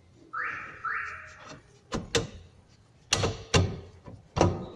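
A brake drum scraping over freshly adjusted brake shoes as it is fitted and turned by hand, twice about half a second apart, each scrape fading out. Then come several sharp metal knocks and clanks. The scraping is the drag check after the adjustment.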